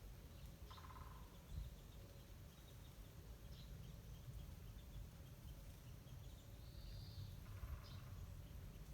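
Wild birds calling faintly over a low outdoor background: one short call about a second in, a brief higher call near the end, then another short call.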